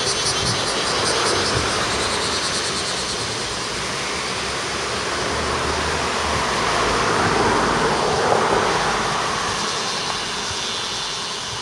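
Steady rushing noise of a passing vehicle, swelling to its loudest about seven or eight seconds in.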